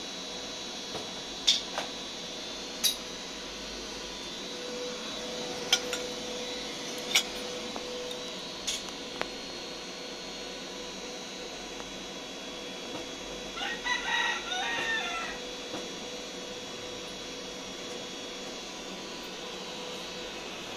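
A steady background hum is broken in the first half by about six sharp knocks and clicks. A rooster crows once, about a second and a half long, about two-thirds of the way through.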